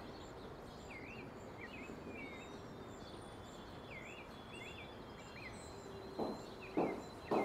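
Quiet outdoor ambience: small birds chirping on and off over a steady low background hiss. About six seconds in, footsteps begin, three steps about half a second apart.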